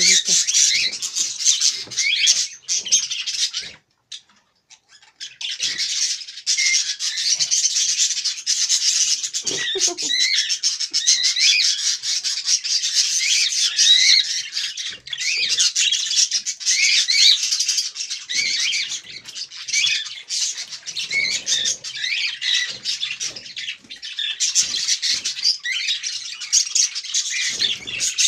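A pet parrot chattering and chirping almost without a break, a dense run of quick high warbles and chirps, pausing for about a second and a half around four seconds in.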